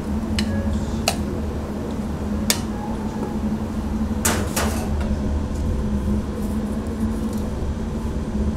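Steady low machine hum of a restaurant kitchen, with five sharp clinks of utensils or dishware, two of them close together about four seconds in.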